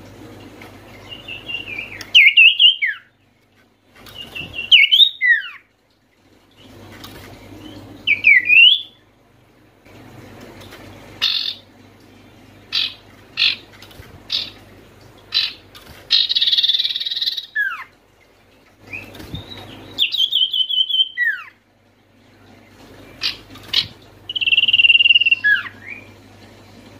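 Common iora singing: repeated whistled phrases that rise and then drop sharply, a run of short sharp single notes, and a harsh buzzy chatter about two thirds of the way through. A faint low hum lies underneath.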